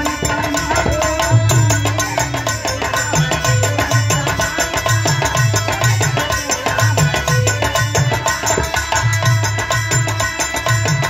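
Live Indian folk music: drums beat a steady, driving rhythm under a melody line, with no words.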